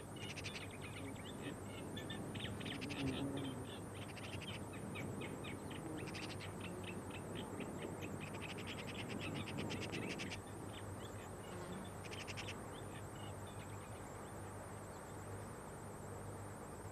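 Natural outdoor ambience with repeated bursts of rapid, high chirping clicks, each train lasting a second or two, over a low steady hum.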